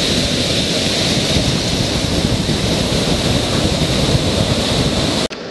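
Ocean surf breaking and washing up the beach in a steady roar, with wind buffeting the microphone. It cuts off abruptly near the end.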